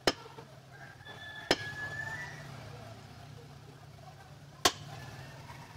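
Heavy meat cleaver chopping through raw goat leg meat onto a wooden log chopping block: three sharp chops, the second about a second and a half after the first and the third about three seconds later.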